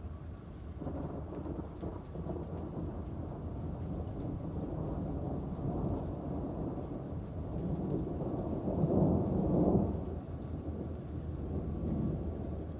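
Rolling thunder rumbling over steady rain. The rumble starts about a second in, builds to its loudest around nine seconds in, then eases off.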